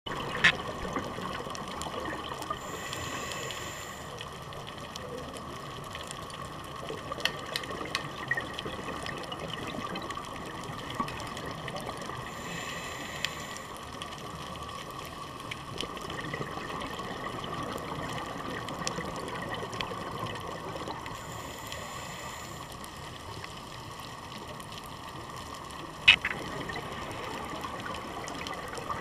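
Underwater sound of a scuba dive: a steady hiss with short rushes of exhaled regulator bubbles about every nine seconds, as a diver breathes out, and a few sharp clicks, the loudest near the end.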